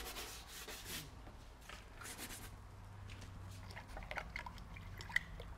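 Faint scrubbing of a paintbrush working white paint over paper for the first two or three seconds, followed by a few soft clicks and light taps, the sharpest about five seconds in.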